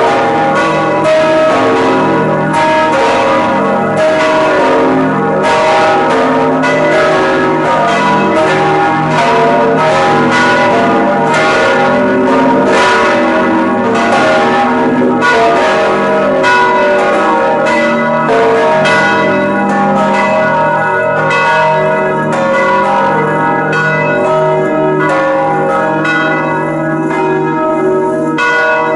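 Storkyrkan's large swinging church bells, tuned A#, C#, D# and B, ringing together at close range inside the belfry. Their clapper strikes overlap into a continuous, loud peal.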